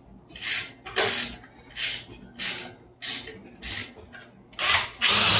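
Torx screws being backed out of a car HVAC blower motor housing: a run of short bursts of tool noise about every two-thirds of a second, then a longer, louder burst near the end as a cordless impact driver spins a screw out.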